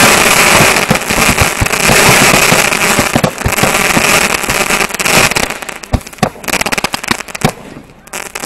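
Ground-mounted fountain firework spewing a tall column of white sparks with a loud, steady hissing rush and crackle for about five seconds. It then dies down into scattered sharp crackling pops.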